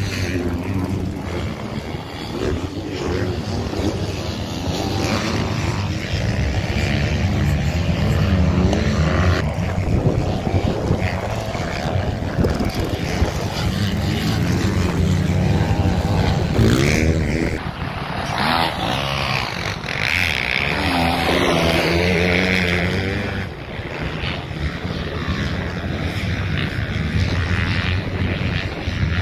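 Dirt bike engines on a motocross track, revving up and down as the bikes accelerate, shift and back off through the corners, with the pitch rising and falling over and over.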